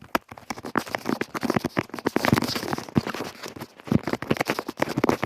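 Small plastic doll accessories and packaging being handled: quick, irregular clicking, tapping and rustling.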